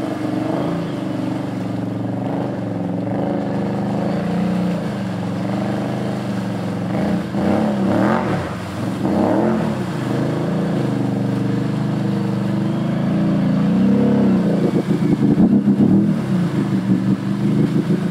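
Can-Am ATV engine revving up and down under heavy load as it churns through deep mud and water, with the highest revs about halfway through.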